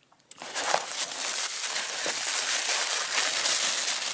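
Brown kraft packing paper crinkling and rustling as it is unwrapped by hand, starting a moment in and going on steadily.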